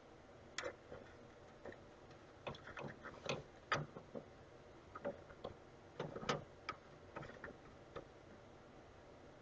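Irregular light clicks and taps of a small sensor part being handled and fitted back into its housing by hand, the sharpest knocks a little past a third of the way in and about two-thirds through.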